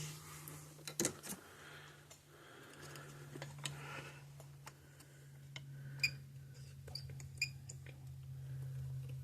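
Scattered light clicks and taps of soldering tools working solder off a circuit board, over a steady low hum.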